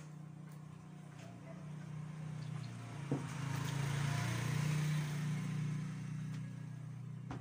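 A low motor hum that swells from about two seconds in, is loudest around the middle and eases off toward the end, with a single short knock about three seconds in.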